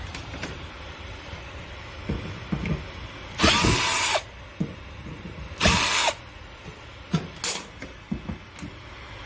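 Cordless drill-driver backing out screws from a school bus's interior side panel in two short runs, with clicks and knocks of handling between them.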